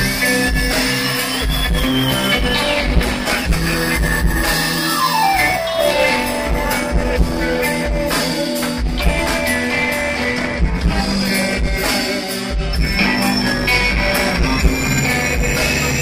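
Live progressive rock band playing: electric guitars over bass and a drum kit, with a sliding tone that falls in pitch about five seconds in. Captured through a phone's microphone.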